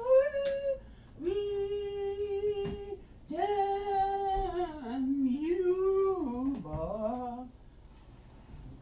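A voice singing or humming a wordless tune in long held notes that slide between pitches, in a few phrases, stopping about seven and a half seconds in.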